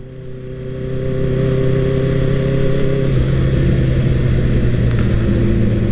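Honda CBR650R's inline-four engine running at a steady cruising speed under way, its pitch holding level. It is quieter for about the first second, then steady.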